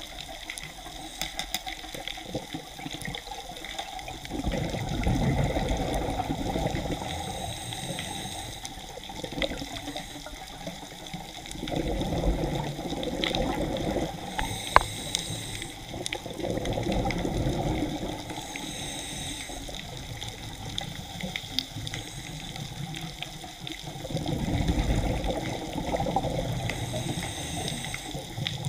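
A scuba diver breathing through a regulator, heard from inside an underwater camera housing. Exhaled bubbles rush past in four surges a few seconds apart over a steady underwater hiss, and there is one sharp click about halfway through.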